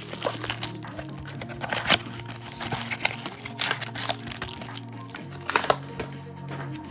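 Foil trading-card pack wrappers crinkling in gloved hands, in a series of sharp rustles with the loudest about two, three and a half, and five and a half seconds in, over steady background music.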